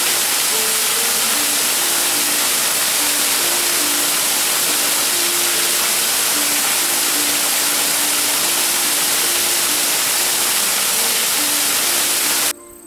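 A small waterfall, about 3 m high, runs steadily onto rocks in a loud, even rush of water. Soft background music sounds beneath it, and the water sound cuts off abruptly near the end.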